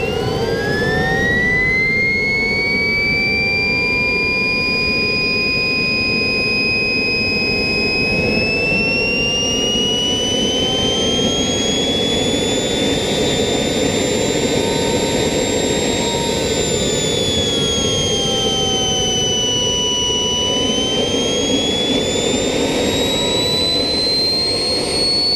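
King Tech K-80 model turbojet engine running with a high turbine whine over a steady rushing exhaust. The whine climbs quickly in the first couple of seconds as the engine spools up and then holds. It rises again from about a third of the way in, dips around twenty seconds and climbs once more near the end as the turbine speeds up and slows.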